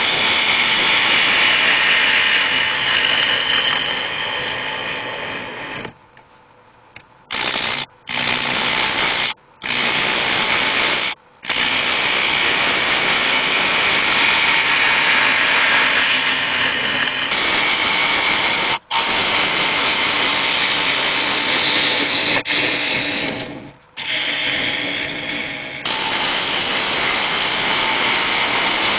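Gouge cutting into the inside of a spinning sycamore glue-up bowl on a wood lathe, hollowing it out: a loud continuous hiss of shavings peeling off the wood. It breaks off several times as the tool leaves the cut, longest about six seconds in, for about a second.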